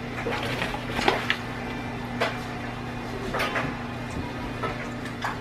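Scattered knocks and clicks of things being handled on a kitchen counter, over a steady electrical hum.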